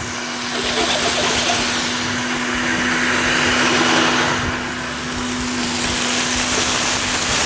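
Pieces of chicken breast frying in hot oil in a pan, a steady sizzle.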